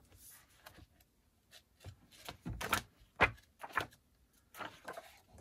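Rummaging through a cardboard box set of records and a book: an irregular run of taps, knocks and rustles as items are handled, the loudest knock about three seconds in.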